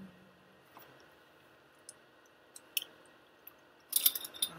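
Aquarium air stone bubbling with a faint steady hiss and a few scattered small clicks, then a short burst of clicking and rustling near the end as the fish food is handled.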